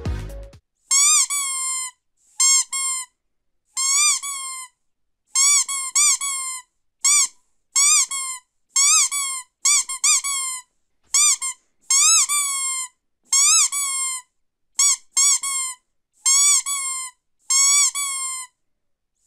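Squeaky rubber dog toy squeezed over and over: short, high squeaks, each rising and falling in pitch, about one a second, several in quick pairs.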